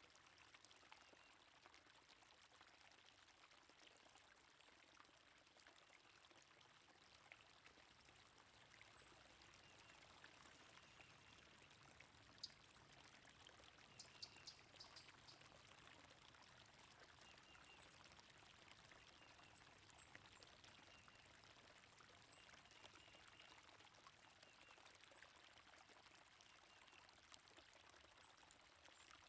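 Faint, steady flowing water of a stream, with small birds chirping briefly here and there over it and a few sharp ticks about halfway through.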